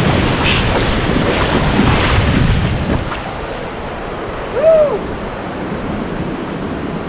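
Waterfall rushing, loud for about three seconds, then dropping suddenly to a quieter, steady rush with wind on the microphone. About halfway through, one short call rises and falls in pitch.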